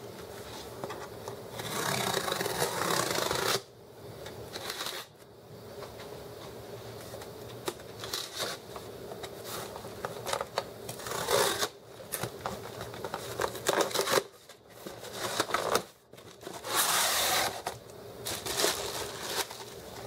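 Hands opening a corrugated cardboard shipping box: packing tape is pulled and torn off the cardboard in several drawn-out rasps lasting a second or two, between stretches of cardboard scraping and rustling.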